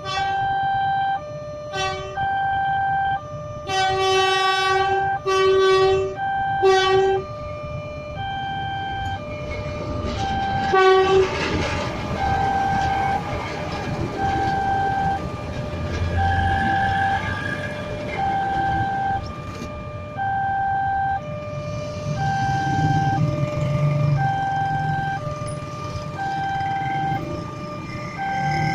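Railway level-crossing alarm sounding from its pole-mounted loudspeaker: a loud, repeating pattern of electronic tones, about one tone a second. A train horn sounds in the first seconds and briefly again about eleven seconds in, then the rumble of the passing train runs under the alarm.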